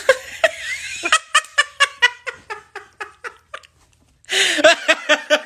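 A person laughing in a rapid run of short pulses, about five a second. It breaks off and then bursts out again near the end.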